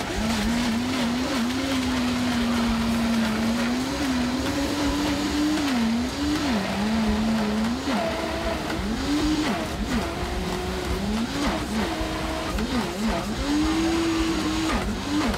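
Countertop blender crushing ice and fruit into a shake. The motor hum holds steady at first, then sags and recovers in pitch again and again in the second half as the ice catches on the blades and the tamper pushes it down.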